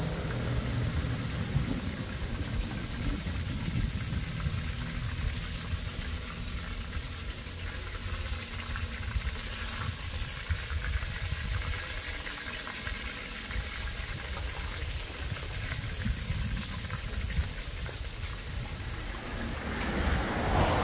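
Wind rumbling on the microphone over a faint steady hiss. It grows louder about 20 seconds in.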